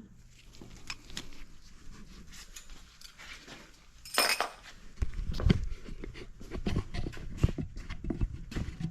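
Light metallic clinks and clatter of parts and tools being handled on a workbench, with a sharp clatter about four seconds in and heavier knocks and handling noise after that.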